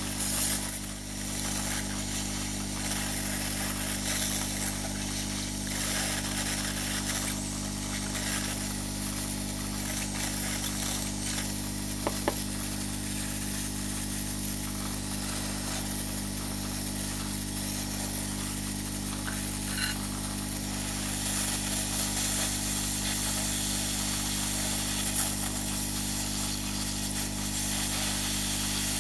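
Hot-air rework gun of an Aoyue 968A+ soldering station blowing steadily: a constant hiss of air over a low motor hum, with a few faint clicks.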